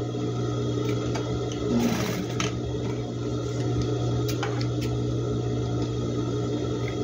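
Electric sewing machine motor running steadily, with a few light clicks from the fabric being handled.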